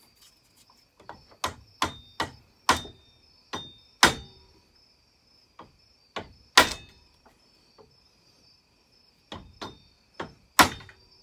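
Sharp metal-on-metal taps and knocks, irregular, about eighteen in all, some with a brief ring, as a screwdriver is worked into a chainsaw bar's groove to spread its pinched rails back open. The loudest strikes come about two-thirds of the way through and near the end.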